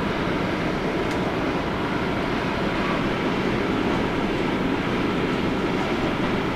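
Jet airliner engines running, a steady, even rumble with no breaks.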